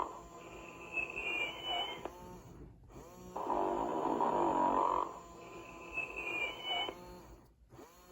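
Tyco 1997 Sing & Snore Ernie toy playing its recorded snoring through its small speaker. Each snore is a loud stretch of about a second and a half, followed by a quieter breath with a thin whistling tone that rises near its end, repeating about every four and a half seconds.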